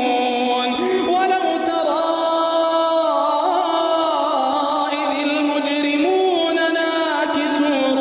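Quran recitation: one voice chanting in the melodic tajweed style, holding long notes and sliding and ornamenting between pitches.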